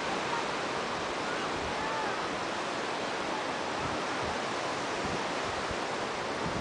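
Ocean surf on a shallow sandy beach: a steady, even rush of waves, with some wind buffeting the microphone.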